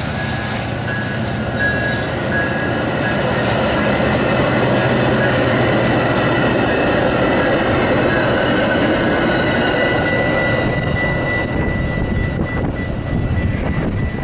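Metra commuter train running past on the rails: a low locomotive engine drone at first, fading after several seconds, under the steady rolling noise of the cars. From about ten seconds in, a thin high steady squeal from the wheels.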